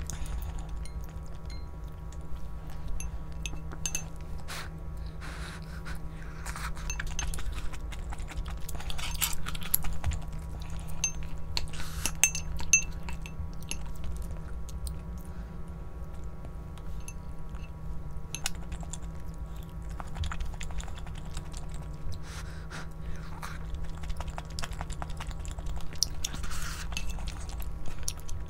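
Eating at the table: chewing, with utensils clinking against dishes in short ringing pings, over a steady low hum.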